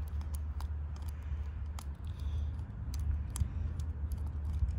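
Flathead screwdriver backing the fuel mixture screw out of a Keihin FCR carburetor: scattered light metal clicks over a steady low rumble.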